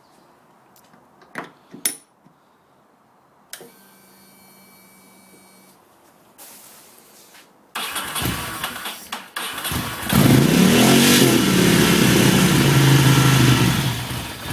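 A couple of clicks and a faint steady hum, then a Ducati Monster's L-twin engine cranking on the starter and catching about two seconds later, running and revving loudly. It fires right up now that the loose hoses on its fuel filter have been tightened.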